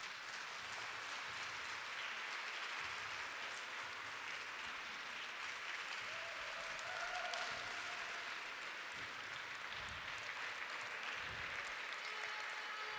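Audience applauding steadily, the even clatter of many hands clapping together.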